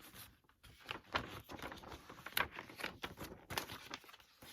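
Posters being handled: irregular rustling and crinkling of paper as the sheets are shuffled and moved.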